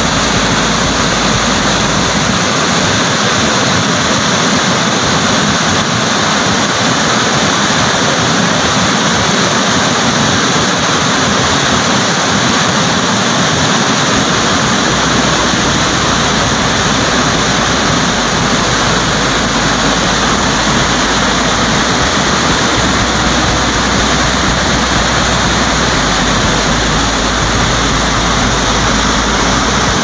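Waterfall: a heavy flow of brown water pouring over rock ledges in a loud, steady rush.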